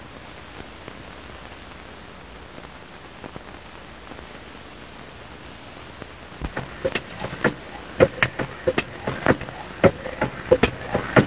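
Steady hiss of an old film soundtrack. About six seconds in, a quick run of sharp mechanical clanks starts, about three a second, from machinery worked by a large hand-wheel and levers.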